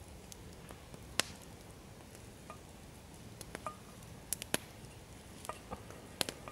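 Wood campfire crackling: irregular sharp pops and snaps over a faint low hiss, a few of them louder.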